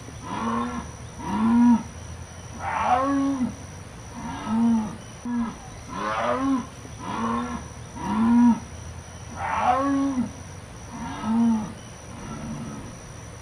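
Jaguar calling: a long series of about ten deep grunting calls, each rising and falling in pitch, repeated roughly once a second.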